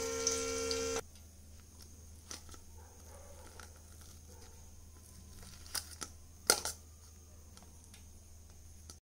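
A steel spoon clicking against a steel plate while picking up pieces of fried chicken: a few sharp clinks about six seconds in, over a low steady hum. A held music chord cuts off about a second in.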